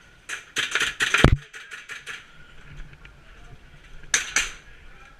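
Airsoft guns firing: a quick string of sharp shots in the first second and a half, then two more shots about four seconds in.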